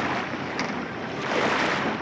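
A sailing yacht under way: a steady rush of wind and sea water, swelling briefly about a second and a half in.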